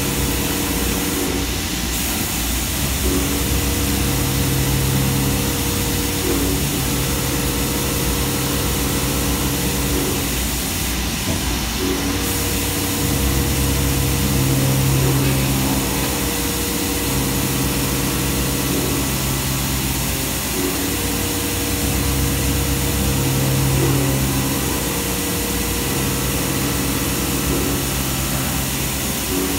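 NV5000 vertical machining center drilling and slotting bent metal parts under coolant: the spindle hums and the coolant hisses steadily. A deeper cutting tone comes and goes every few seconds as the tool moves from cut to cut.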